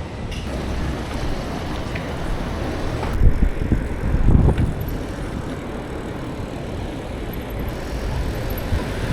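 Outdoor road and traffic noise while riding, a steady rumbling haze with two louder low swells about three and four and a half seconds in.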